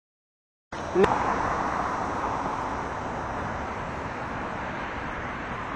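Steady outdoor background noise that cuts in suddenly after a moment of silence, with a short vocal sound about a second in.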